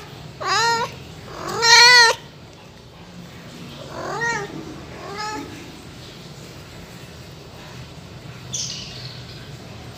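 A kitten meowing: four short, high, arching meows, the first two loud and the next two fainter a few seconds later.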